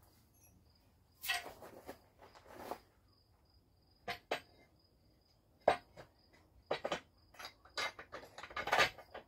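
Metal tools clinking and tapping on a Model A front axle as a tapered spring perch is worked into the axle's hole, a few scattered knocks at first and a quicker run of taps near the end, with a faint high insect trill going on and off behind.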